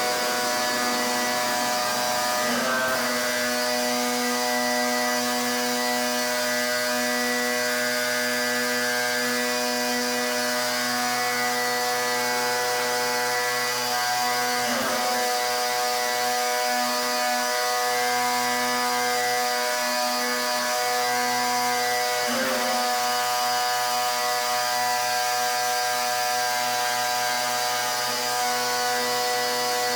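Pressure washer running steadily, a motor or pump hum over the hiss of the high-pressure water spray; the hum dips briefly three times.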